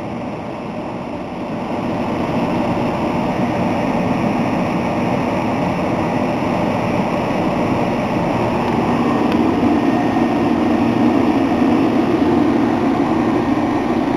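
Commercial refrigeration condensing unit running on R404A: the compressor's steady hum under the rushing air of the condenser fan, getting a little louder about two seconds in.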